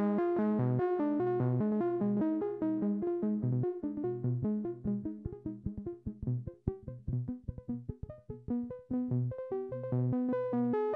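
DIY analog synthesizer sequence from a Sound Lab Mini-Synth and MFOS WP20, stepped by a Doepfer MAQ 16/3 sequencer: a repeating pattern of pitched notes, about three a second. As the knobs are turned, the notes become short, clipped blips in the middle and lengthen again near the end.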